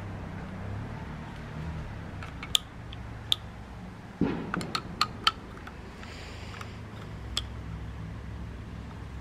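Scattered sharp clicks and a dull thump about four seconds in, from a cordless angle grinder and its metal two-pin spanner being handled.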